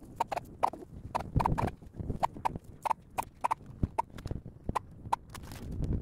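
Hand tool working the refrigerant service valves and fittings of an air conditioner's outdoor unit: a string of short, sharp clicks at irregular spacing, about three a second. A brief rustle of movement near the end.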